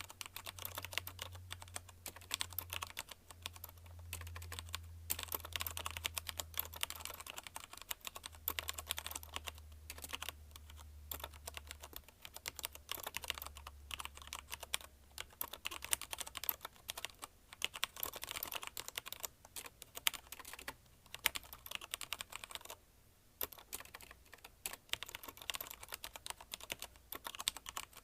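Fast continuous typing on a mechanical keyboard with linear Cherry MX Red switches, a dense irregular patter of key clacks with a short pause about two thirds of the way through.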